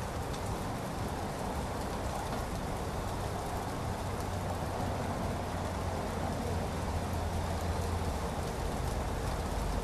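Light rain falling steadily on trees, shrubs and lawn, an even patter-free hiss. A low rumble swells in the second half.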